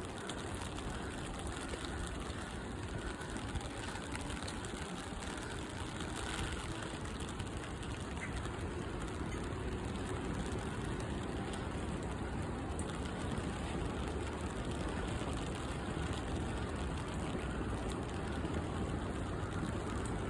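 Steady outdoor background noise: an even rushing hiss and low rumble with no distinct events, growing slightly louder partway through.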